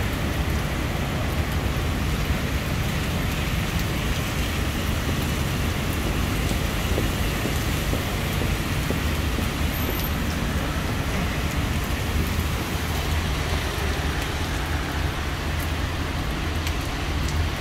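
Steady restaurant background noise: an even hiss with a low hum underneath and no distinct events.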